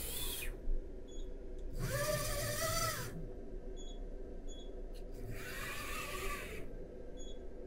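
Servo axis drives of a TRAK 2op CNC mill moving twice, each move a motor whine that rises in pitch, holds steady and falls away as the axis stops. A few short high beeps come between the moves.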